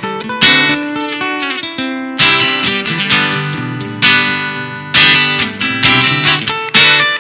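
Solo acoustic guitar playing an instrumental piece: chords struck and left ringing, with picked notes between them. The strikes come quicker, about twice a second, in the second half.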